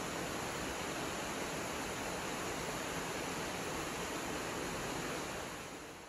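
Waterfall cascading down a rock cliff into a plunge pool: a steady, even rush of falling water that fades out near the end.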